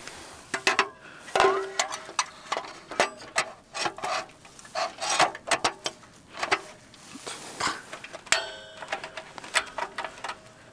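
Scattered clicks and knocks of a portable butane gas heater being handled as a butane canister is fitted into it. About eight seconds in there is a short buzzing ring lasting about a second and a half.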